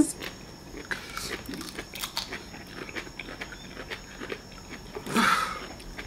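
Close-miked wet chewing and biting of spicy seafood papaya salad and raw cabbage, with many small irregular crunches and mouth clicks. There is a louder breathy sound about five seconds in.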